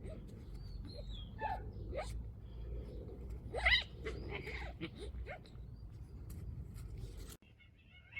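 Domestic cats in a fight: several short yowls and growls, the loudest about three and a half seconds in, over a steady low rumble. The sound cuts off suddenly about seven seconds in.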